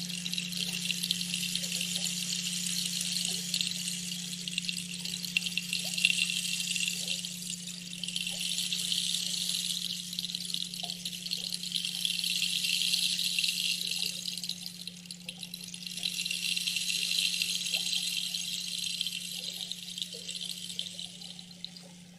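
Running water with a hissing, rattling texture that swells and fades in slow waves, over a steady low hum.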